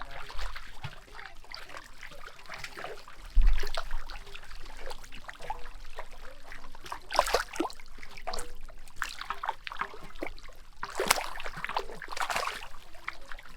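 Water and mud splashing and sloshing irregularly as fish are grabbed by hand in a drained, muddy pond, with a heavy thump about three and a half seconds in.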